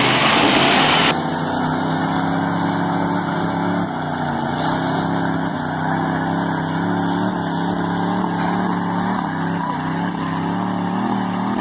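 Lifted pickup trucks' engines running hard under load as the trucks pull against each other in a tug-of-war, a steady drone with small wavers in pitch. Loud music plays for the first second before it cuts off.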